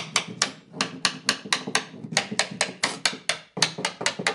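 A small hammer tapping lightly on a wooden picture frame: quick, sharp strikes at about four a second, in short runs with brief pauses.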